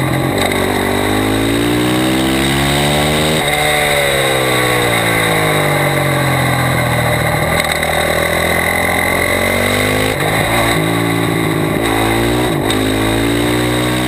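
Sport motorcycle engine at racing speed, heard from a camera mounted low on the bike. The revs climb for about three seconds, then fall for several seconds as the bike slows and leans into a corner, and climb again near the end with a few quick upshifts.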